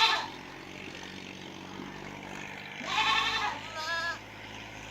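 Goats bleating: the tail of one wavering bleat at the start, then two more bleats close together about three seconds in.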